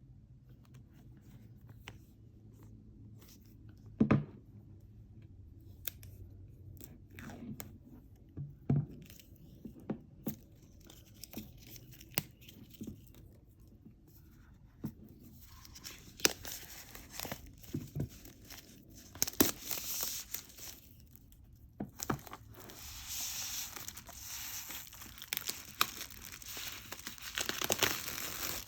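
Packaging being handled and opened by hand: scattered taps and knocks, then from about halfway a run of crinkling and tearing of paper or plastic wrapping.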